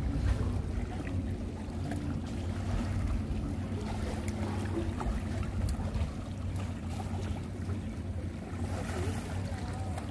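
A steady low hum under faint wind and water noise, with a few light clicks.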